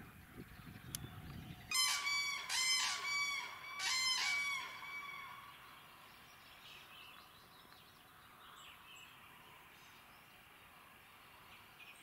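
Northern lapwing calling: about four loud, nasal calls in quick succession in the first half, some bending in pitch, then only faint outdoor background.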